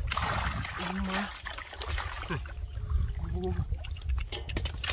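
Muddy shallow water splashing and sloshing as hands grope through it and lift out a fish, loudest just at the start, with short vocal sounds in between.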